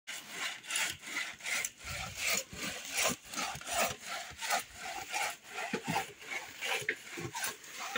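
A two-man crosscut saw cutting through a tree trunk near its base: a steady back-and-forth rasping, about two to three strokes a second.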